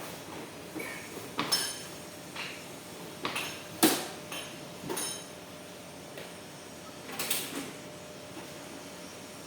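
Hard clacks and sliding knocks from handling cash cassettes and their latches in a cash recycling machine, about six separate strokes with the loudest about four seconds in.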